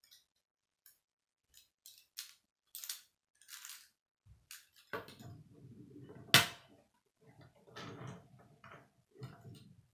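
K'nex plastic rods and connectors clicking and rattling as they are handled and snapped together on a wooden tabletop, with one sharp, loud click about six seconds in.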